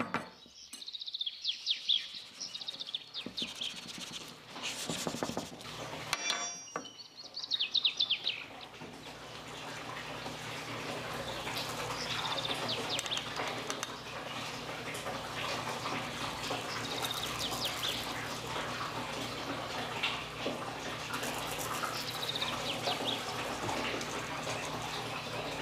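Birds chirping in quick trills, loudest in the first few seconds. From about nine seconds in there is a steady hiss, with a few fainter chirps over it.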